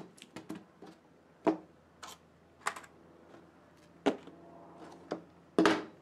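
Coils of wire, a plastic tub and a wire-stripping tool being set down one after another on a workbench: a string of about eight sharp knocks and clunks, the loudest near the end.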